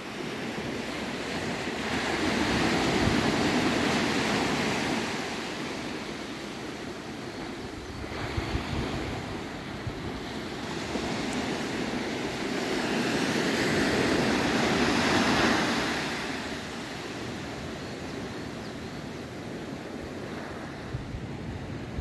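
Small Mediterranean waves washing up a sandy beach, the surf hiss swelling a couple of seconds in and again past the middle, then easing as the water draws back.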